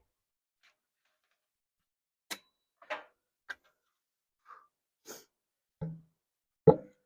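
A series of about seven irregular, separate knocks, loudest near the end.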